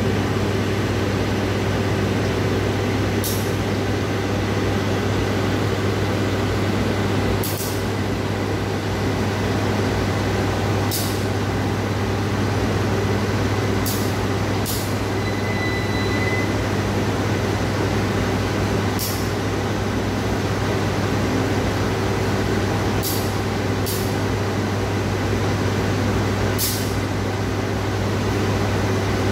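KAI CC 201 diesel-electric locomotive running steadily at low power with a low, even hum as it creeps up to couple onto the coaches, with short sharp hisses of air every few seconds.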